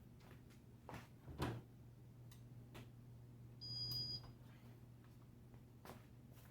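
Casablanca ceiling fan's Emerson K55 motor running on speed 4 of 6, a faint steady low hum with a few soft clicks. A brief high-pitched tone sounds about four seconds in.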